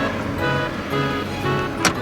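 Background music with held notes, and one sharp click near the end.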